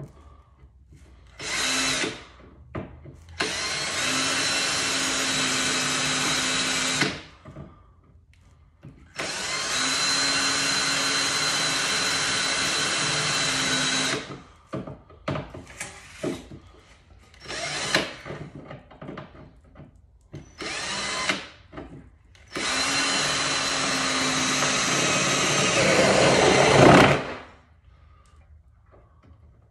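Cordless drill running in repeated bursts: three long runs of several seconds each and a few short blips. The last run grows louder and rougher just before it stops.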